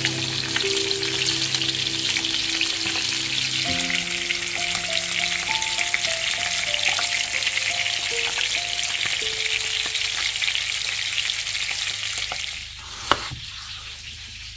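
Chicken thighs and garlic cloves sizzling steadily as they fry in oil in a pan, under background music. Near the end the sizzle stops and there is a single knock on a wooden cutting board.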